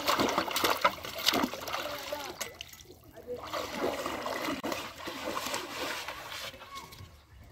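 Shallow river water splashing as a man works a trap and tools at the surface by hand, then the sloshing steps of someone wading through it, fainter near the end.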